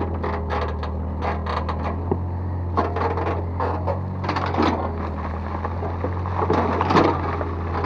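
Excavator's diesel engine running steadily, with irregular metal clanks and scrapes as it works the soil.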